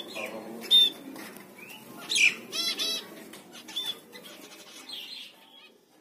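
Zebra finches calling: short, sharp calls, with a quick run of several about halfway through, over light rustling, fading out at the end.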